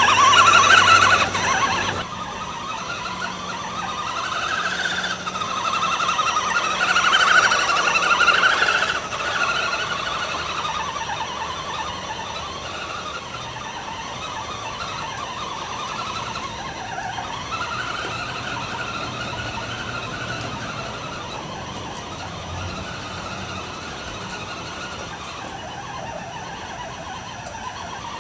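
Electric drive motor of a 1/6 scale radio-controlled WC52 truck on an Axial Wraith chassis, whining as it drives, its pitch rising and falling with the throttle. Loudest in the first several seconds, then fainter.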